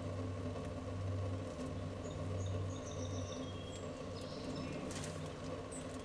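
Outdoor background: a steady low hum like a distant engine, with faint high bird chirps in the middle and a brief burst of noise about five seconds in.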